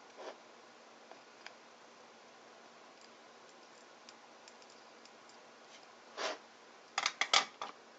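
Faint ticks and small clicks of hands and tools working at a circuit board during soldering. Near the end come a short rustle and then a quick cluster of sharper knocks.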